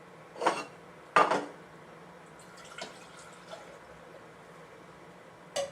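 Kitchen containers and utensils handled on a counter: two loud clinks a little under a second apart, a few faint clicks, then one more knock near the end.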